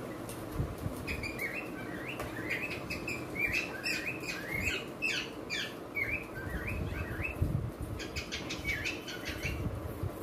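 Small bird chirping rapidly: quick, high chirps that slide downward in pitch. They come in a long run lasting most of the time, then a shorter run near the end.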